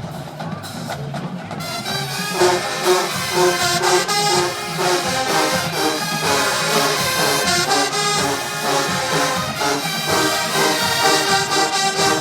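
Show-style HBCU marching band playing: percussion alone for about the first two seconds, then the full brass section comes in loud over the drums.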